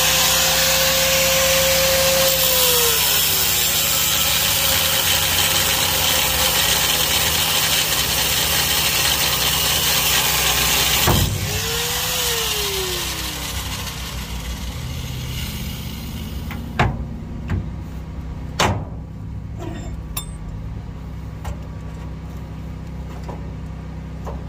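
Corded angle grinder with a cut-off disc cutting through a steel U-bolt on a truck frame. The motor's whine sags under load and the grinding goes on for about eleven seconds, then stops abruptly. The motor briefly whines up and winds down, followed by a couple of sharp metal clinks.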